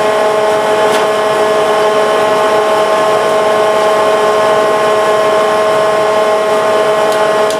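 An electric motor running steadily with a whine of several fixed tones over a rushing noise. It stops near the end.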